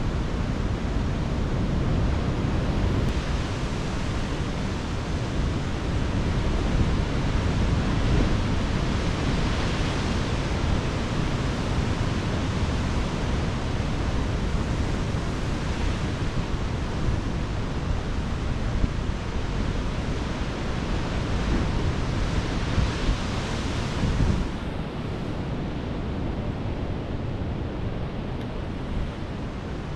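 Sea surf breaking and washing against rocky shore, a steady rushing roar that swells with each wave, with wind buffeting the microphone as a low rumble.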